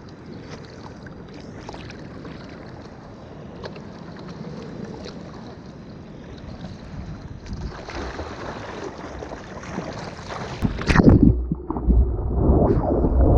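Ocean surf and wind as a steady wash of noise; about two-thirds of the way through, wind starts buffeting the microphone with a loud, low rumble.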